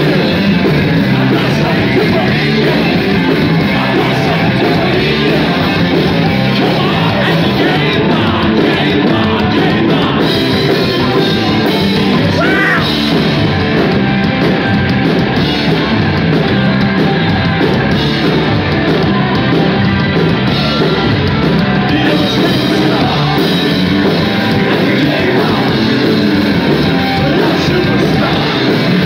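Live rock band playing loudly and without a break: electric guitars, bass guitar and drums, with shouted and sung lead vocals.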